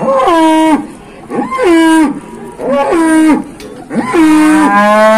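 Cattle mooing close by: a run of short, loud moos about one a second, each dropping in pitch at its end, with a longer call overlapping them near the end.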